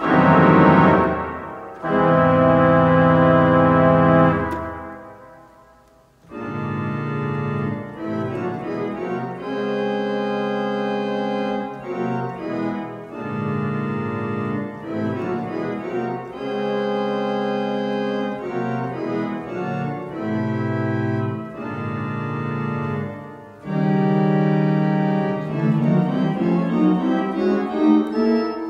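1929 Midmer-Losh pipe organ playing sustained chords. Two loud full chords with deep pedal bass are released and die away in the church's reverberation. After a brief pause, a softer passage of held chords follows in short phrases, with a rising line near the end.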